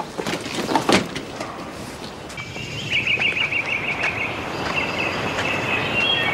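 Outdoor ambience: a steady rushing noise, with a bird trilling rapidly about three seconds in and more faintly near the end.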